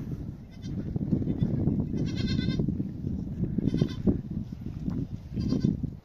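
A goat bleating: a quavering high bleat about two seconds in, then two shorter bleats near four and five and a half seconds, over a continuous low rumbling noise.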